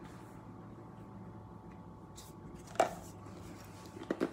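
Light knocks and clicks of bottles being handled: one short knock about two-thirds through and a few quick clicks near the end, over a quiet steady low hum.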